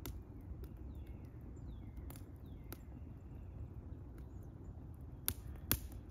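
A handful of sharp clicks or snaps, the two loudest close together near the end, over a steady low rumble, with a few faint high chirps.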